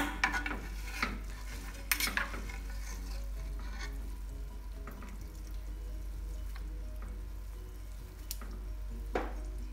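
A few sharp clacks of kitchen utensils as the softened noodles are handled for draining, the loudest right at the start, over soft background music.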